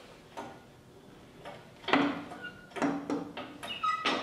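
Irregular metallic knocks and clinks, about seven, a few with a brief ring, as the overdrive housing is shifted and settled on the steel plates of a shop press. The loudest come about two seconds in and near the end.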